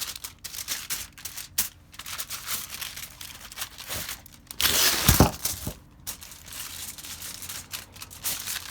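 Aluminium foil being crinkled and folded by hand as hot dogs are wrapped, in irregular crackles, with a louder rush of crumpling about halfway through.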